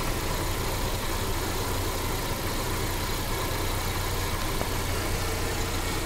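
Mercedes CLA 200's four-cylinder petrol engine idling with a misfire that makes the engine shake; a diagnostic scan blamed the misfire on faulty ignition coils.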